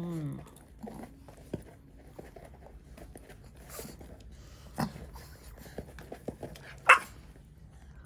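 A dog gives a short, falling whine at the start, followed by scattered small clicks and knocks, with one sharp knock near the end as the loudest sound.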